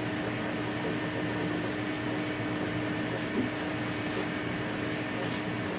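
Steady background hum with one constant low tone and no distinct handling noises.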